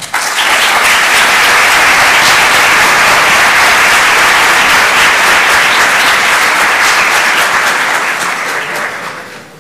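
Audience applauding, steady and sustained, then dying away near the end.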